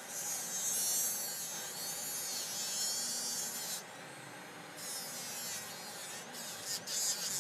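Slow-speed dental lab handpiece spinning a Lisko abrasive disc against the edge of a thermoformed plastic appliance: a motor buzz with a hissy grinding rasp. The grinding drops out for about a second near the middle as the disc comes off the material, then resumes.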